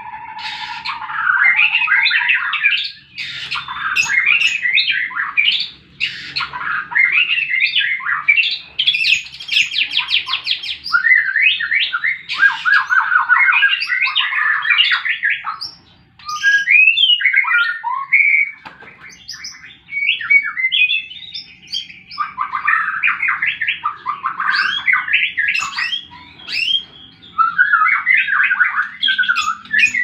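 White-rumped shama singing a long, varied song of rapid whistles, trills and chattering phrases, with a couple of short breaks.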